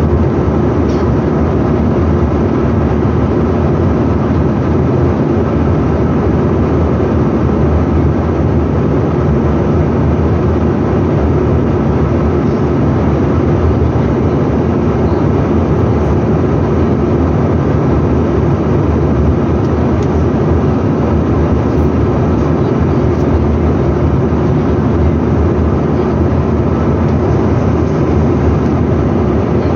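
Steady, even cabin noise inside a Bombardier CRJ900 jet airliner in flight. It comes from the plane's two rear-mounted turbofan engines and the air rushing past the fuselage.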